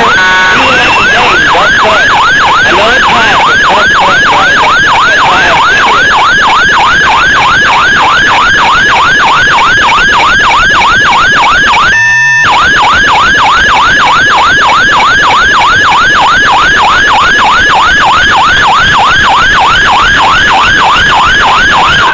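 Emergency vehicle's electronic siren sounding very loud and close in a fast yelp, its pitch sweeping up and down about three times a second. About halfway through it briefly holds one steady tone, then goes back to the yelp, and it cuts off at the very end.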